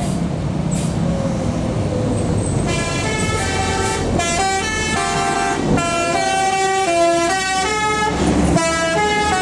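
Tour bus's 'telolet basuri' melody horn, a multi-tone air horn playing a tune of stepping notes. It starts about three seconds in, with a short break near the end, over the bus's engine and road noise.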